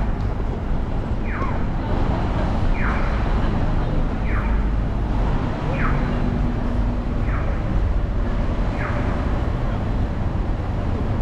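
A short falling electronic signal tone repeating about every second and a half, stopping about nine seconds in, over a steady low rumble of city street traffic.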